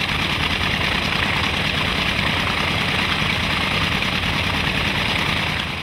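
Large piston aircraft engine on a test stand running steadily and turning its propeller: a rapid low pulsing under a loud, even rush of air.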